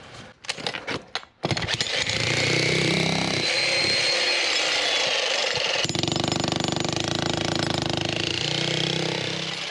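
Electric demolition breaker (corded jackhammer) with a chisel bit hammering into thick concrete, running continuously from about a second and a half in, after a few separate knocks at the start.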